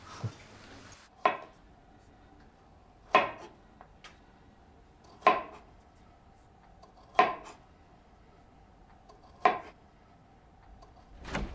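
Slow, steady kitchen knife chopping on a cutting board: six single strokes, about two seconds apart, each a sharp knock with a short ring.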